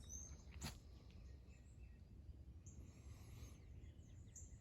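Near silence in the woods: a few faint, high bird chirps, and one short crunch less than a second in.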